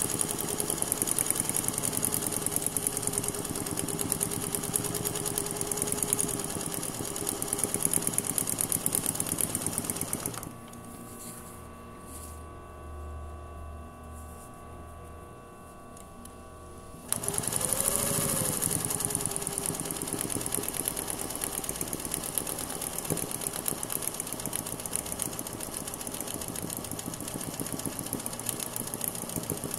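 Sewing machine doing free-motion embroidery, the needle stitching fast and steadily. It goes quiet for about six seconds midway, then stitches steadily again.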